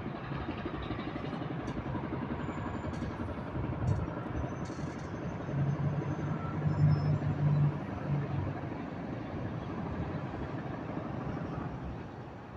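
Steady street traffic noise, with one vehicle's engine passing close and growing louder for a couple of seconds in the middle.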